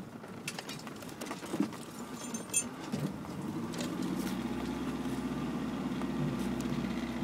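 Land Rover Discovery Mk1 heard from inside the cab on a rough track, with scattered knocks and rattles. From about four seconds in, the engine's steady drone comes up louder and holds.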